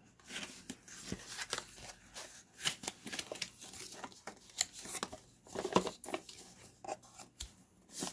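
Cardboard camera box being handled and slid open by hand: irregular scrapes, taps and rustles of card on card.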